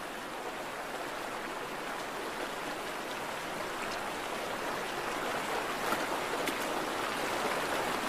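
Stream water running steadily, growing a little louder toward the end, with a few faint ticks.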